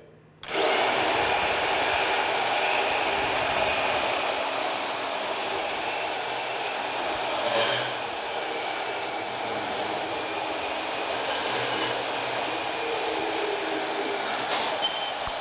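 Portable bandsaw cutting through 5/8-inch round steel bar. The motor starts about half a second in and runs at a steady pitch through the cut, with a couple of brief clicks.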